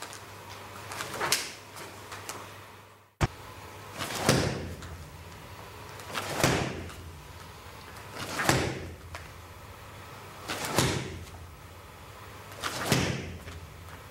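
Bare-foot karate kicks smacking into a hand-held punching mitt, one strike about every two seconds, each with a short swish around it. An audio cut with a click comes about three seconds in.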